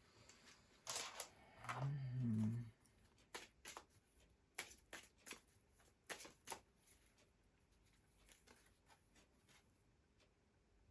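A brief low murmur of a voice about two seconds in, then a run of faint, sharp clicks and taps over a few seconds as tarot cards are handled and laid down on a table.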